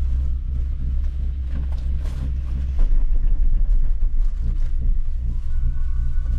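Steady low rumble of a gondola cable car cabin running along its cable, heard from inside the cabin; it gets heavier about three seconds in.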